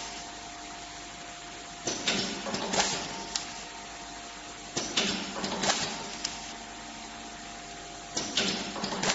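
Handheld automatic nylon cable tie gun cycling three times. Each cycle is a burst of about a second and a half of mechanical whirring and sharp clicks as it feeds, tightens and cuts a tie around a wire bundle. A steady hum with a faint tone runs between the cycles.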